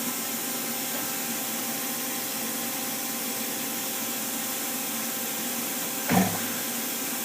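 Powered-up Daewoo Lynx 200A CNC lathe standing at rest, giving a steady hum with several fixed tones over an even hiss, with a brief louder sound about six seconds in.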